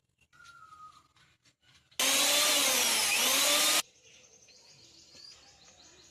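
Bajaj 550-watt mixer grinder's motor switched on for a short burst of about two seconds, starting and stopping abruptly, its whine wavering down and back up in pitch.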